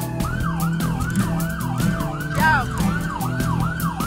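Police escort siren yelping, its tone rising and falling about three times a second. A second siren whoops once about midway.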